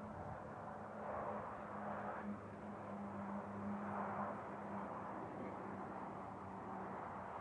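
Alco DL531 (830 class) diesel locomotive running light engine at low speed, its engine a steady low drone. Road traffic on the overpass above, including a truck, swells in over it twice, around one to two seconds in and again around four seconds.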